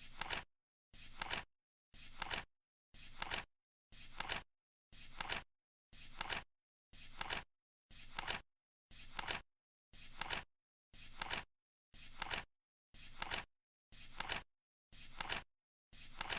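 Flip clock's digit flap turning once a second in a steady beat: each turn a half-second rustle that ends in a sharp click.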